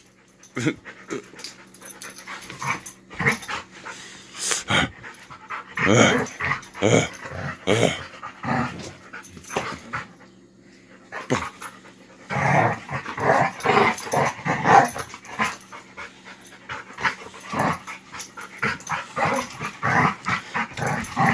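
A puppy growling and yipping in play, in irregular bursts, with a lull of a couple of seconds about halfway through.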